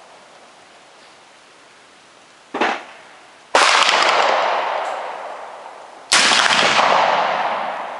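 Two heavy black powder cartridge rifle shots about two and a half seconds apart, each fading in a long echoing tail under the range roof, with a shorter sharp crack about a second before the first.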